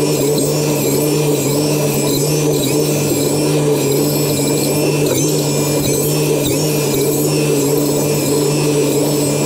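A small electric motor, such as a power tool's, running steadily with an even hum.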